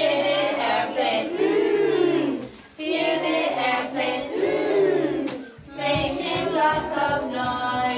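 Music: high voices singing a melody in long arching phrases over a low backing line, with short breaks about 2.7 s and 5.7 s in.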